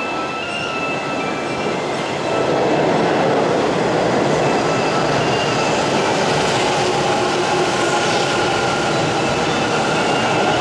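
Electric commuter train running on the rails, steady wheel and running noise that grows louder about two seconds in and then holds, with faint squealing tones over it.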